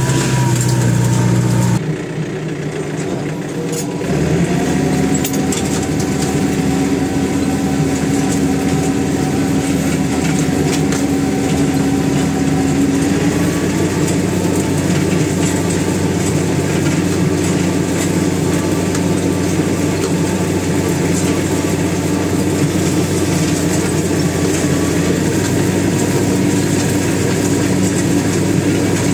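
Farm tractor engine running steadily. The sound changes abruptly about two seconds in, then settles into a new even engine note from about five seconds in.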